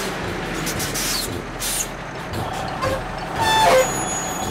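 Cartoon tow-truck sound effects: a truck engine running with hisses, and a short rising whine about three and a half seconds in as the winch hoists the car.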